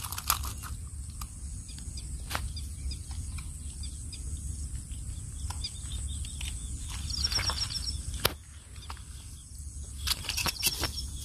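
Wind rumbling on the microphone, with scattered clicks and rustles of handling. A small bird's quick, high chirping trill comes twice, about seven seconds in and again near the end.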